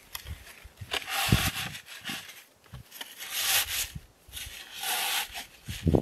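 Camouflage cover fabric on a hide frame rustling as it is handled, in several bursts of crinkly rubbing with a few dull knocks.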